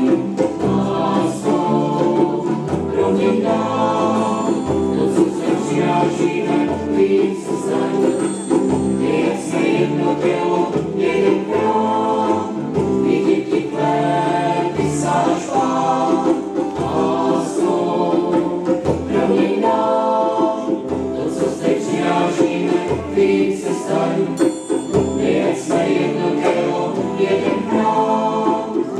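Mixed choir of men and women singing a hymn during Mass.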